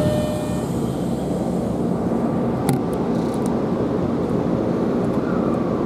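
Steady low rumble and hum of a subway train at an underground station platform, with a few faint clicks about three seconds in.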